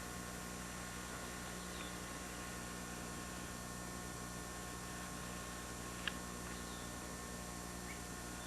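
Steady low hum and hiss from an early-1990s camcorder's own recording noise. A few faint, short, high, falling chirps come through it, and there is one sharp click about six seconds in.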